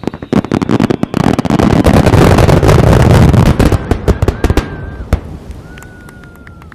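Fireworks display: a rapid volley of aerial shell bursts and crackling that builds to a dense, loud barrage about two seconds in, then dies away into scattered crackles. Two thin whistling tones sound near the end.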